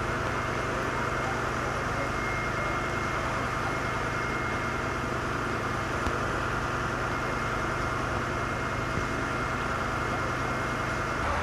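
Steady drone of a fire engine running at the fire ground, with the hiss of a hose stream spraying water.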